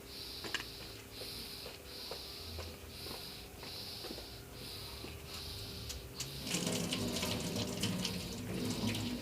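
A cat eating close to the microphone: a hiss that comes and goes a little over once a second, then from about six and a half seconds in a louder run of small crunches and clicks.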